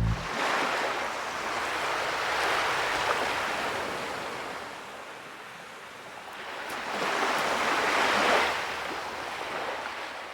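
Ocean waves breaking and washing in, swelling and fading twice, about five seconds apart.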